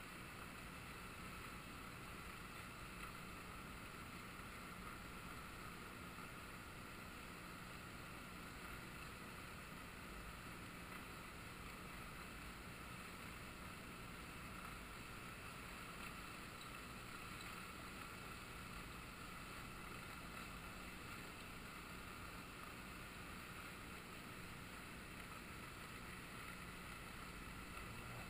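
Faint, steady rushing of the flooded river's current, with no distinct events.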